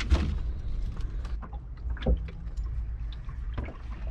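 Wind rumbling on the microphone in a small open boat, with a few sharp knocks, the loudest about two seconds in.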